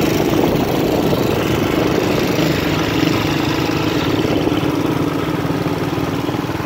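Motorcycle engine running steadily as the bike rides along, heard from the rider's seat.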